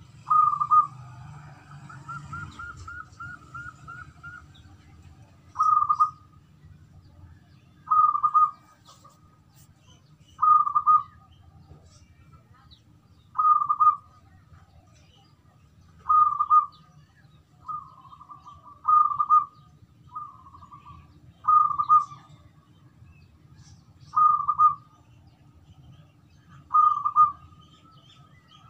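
Zebra dove (perkutut) cooing: a short mellow call repeated about every two and a half seconds, with a quick run of rapid notes a couple of seconds in.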